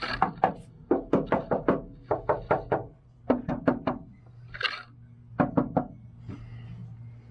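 Knuckles knocking on the bare, undeadened sheet-steel panel of a Unimog U1300L cab, in quick runs of several raps with short pauses between. It is a demonstration of how the metal sounds before sound-deadening mat is applied.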